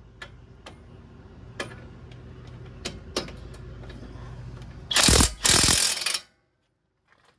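Hand ratchet wrench clicking on a caliper bracket bolt: a few single clicks, then two loud bursts of fast ratcheting about five seconds in, which cut off suddenly.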